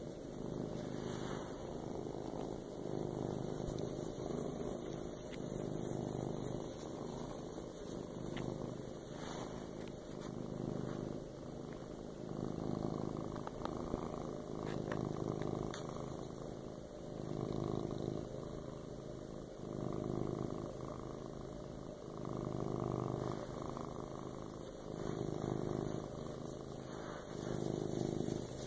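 Tabby cat purring steadily while being scratched under the chin and on the head, a sign that it is content. The purr swells and fades with each breath, about once every two seconds.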